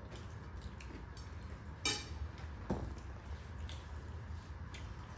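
Cutlery clinking lightly against plates and bowls over a steady low room hum, with a sharper clink about two seconds in and another a little later.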